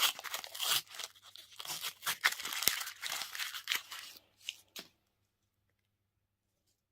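Crinkly candy wrapper being torn open and crumpled: a dense run of crackles and sharp ticks that stops suddenly about five seconds in.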